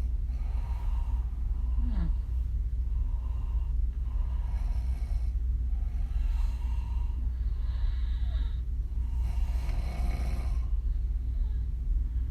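A woman snoring through an open mouth, her lips puffing on the breaths, with a breath sound about every one and a half to two seconds. A steady low hum runs underneath.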